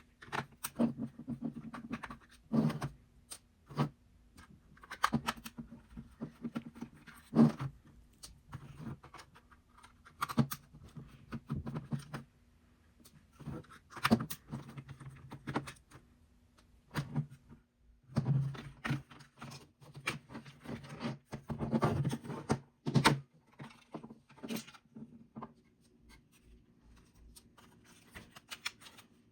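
Irregular small clicks, taps and scraping from hands and tools handling the parts of an opened Nintendo Switch dock while a connector is being cleaned.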